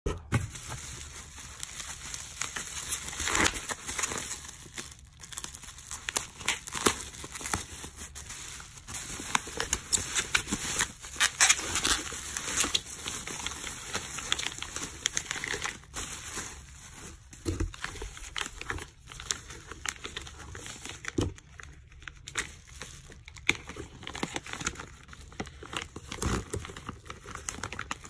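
Bubble wrap and a clear plastic sleeve being pulled open by hand, crinkling and rustling irregularly, with many short sharp crackles.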